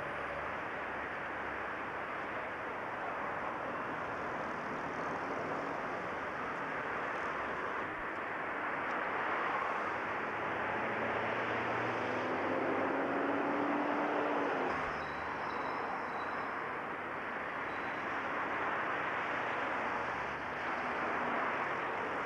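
Street traffic noise: a steady wash of passing vehicles, a little louder midway, with one engine note climbing in pitch for a few seconds and then cutting off.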